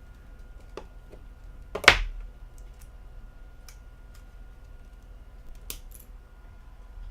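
Small plastic clicks and taps as a smartphone's removable battery and memory or SIM cards are taken out, with one sharper click about two seconds in.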